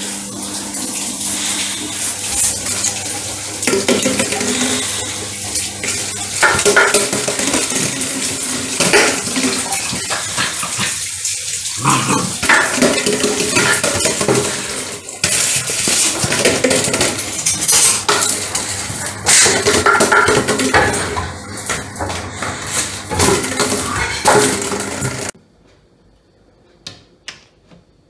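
Loud rushing noise like running water, with frequent clattering knocks mixed in; it cuts off suddenly near the end, leaving only a few faint clicks.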